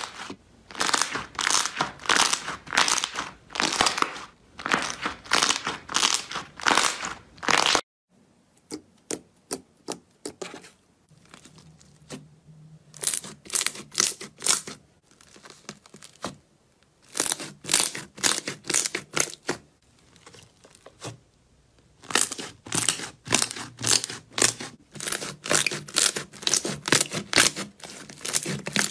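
Hands pressing and squishing slime, making dense crackling and crunching for the first eight seconds. A sudden break follows, then sparser sticky clicks and pops from a glossy glitter slime being kneaded, which grow dense again over the last seven seconds.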